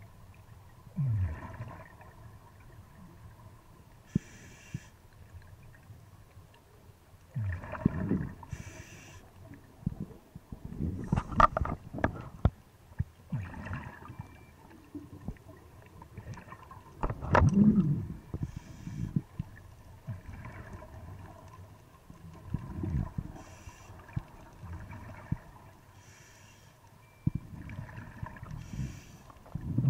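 Scuba diver breathing through a regulator underwater: short hissing inhalations alternating with bursts of exhaled bubbles, a breath about every five or six seconds.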